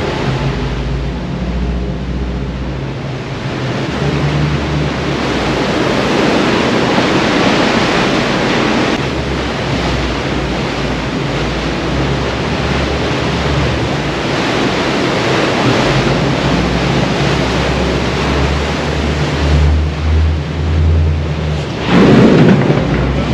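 Rushing water and wind from a pilot boat running fast alongside a large ship, with the boat's engine running low underneath. A louder surge of noise comes near the end.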